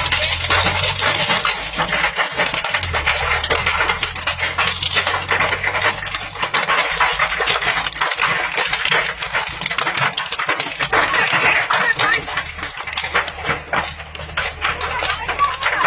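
Hailstones pelting down in a dense, rapid clatter of many small impacts.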